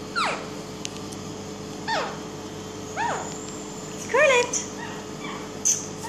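Young Indian ringneck parakeet calling: about four short calls, each a quick arch up and down in pitch, roughly a second apart, the last a quick pair. A faint steady hum runs underneath.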